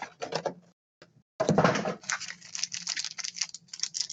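Trading card packs and cards being handled at a table: rapid light clicks and crinkling, with a short pause about a second in.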